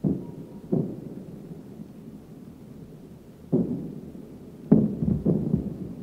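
Anti-aircraft guns firing in a 1941 night air raid over London: distant booms that each die away in a rumble. Two come in quick succession at the start, another about three and a half seconds in, and a rapid cluster of three near the end.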